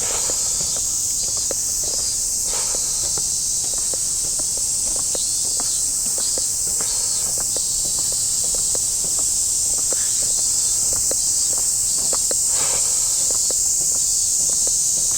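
A steady high chorus of cicadas buzzing, with footsteps walking along underneath.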